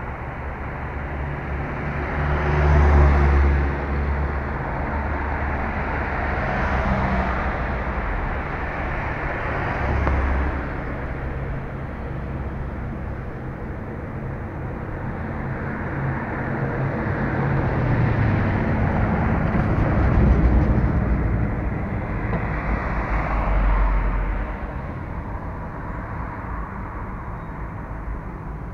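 Road traffic on a city street: cars drive past close by one after another, about five passes that each swell and fade over a steady traffic hum.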